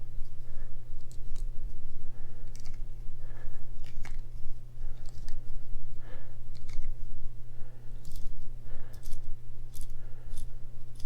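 Axelson metal lathe running with a steady low hum, while a steel nut is scraped and clicked at irregularly as its burrs are worked off.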